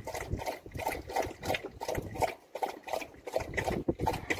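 Anatolian shepherd dog lapping water from a bowl, a steady rhythm of wet laps about four a second.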